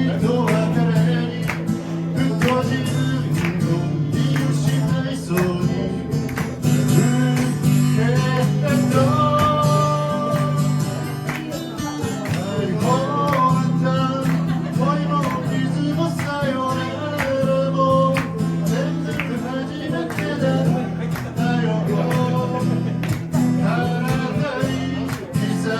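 Acoustic guitar strummed steadily through a chord pattern, with a melody line carried above it, in a live solo song performance.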